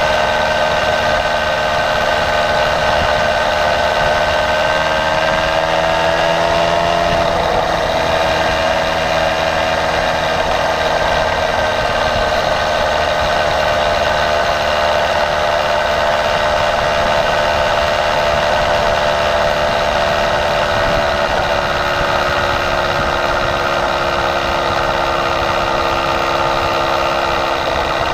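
Motorized bicycle's small engine running under way. Its pitch rises about six seconds in, then slowly eases lower as it keeps running.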